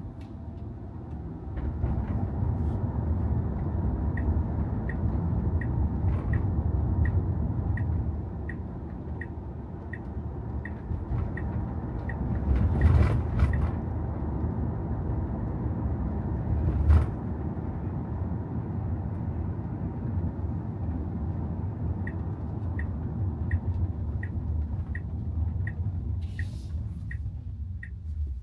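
Tesla Model Y on the move: a steady low road and tyre rumble, with no engine note. For two stretches a light regular tick sounds about one and a half times a second, and there are two louder thumps, one about halfway and one a few seconds later.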